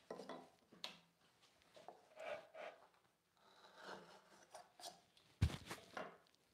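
Faint, scattered scraping strokes of a hand tool on wood, a few short rasps at a time, with one sharp knock about five and a half seconds in.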